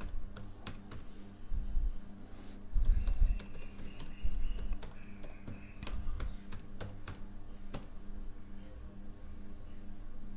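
Typing on a computer keyboard: irregular runs of key clicks with short pauses, growing sparse near the end.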